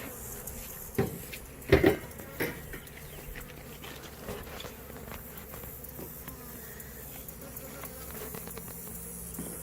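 Honey bees buzzing steadily around an open hive, with a few sharp knocks about one to two and a half seconds in.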